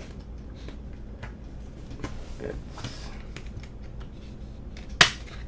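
Light clicks and rustling from a Blu-ray steelbook case and its discs being handled, with one sharp click near the end.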